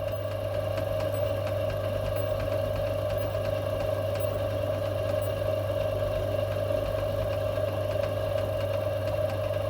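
Metal lathe running steadily while its tool takes a light cut of a few thousandths off an oversized steel bar: a constant hum with a steady mid-pitched whine.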